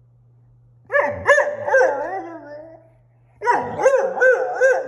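A German Shorthaired Pointer puppy giving two bouts of whiny, grumbling 'talking' vocalizations. Each bout is a string of four or five quick calls that swoop up and down in pitch. The whining is a protest at not being let outside.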